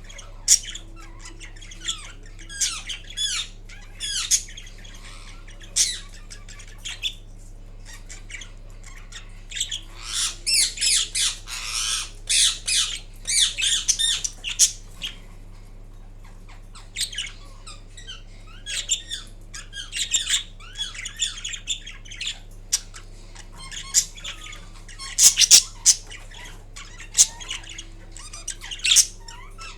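Green Indian ringneck parakeet making sleepy vocalisations while dozing: runs of short squawks, chirps and chatter in clusters, with brief pauses between them.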